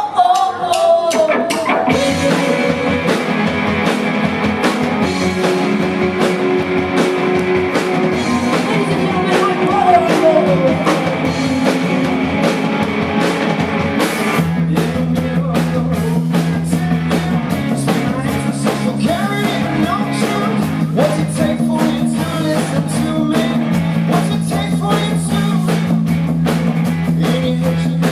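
Live rock band playing with a singer, guitar and drum kit; about halfway through the drums and bass come in harder with a steady beat.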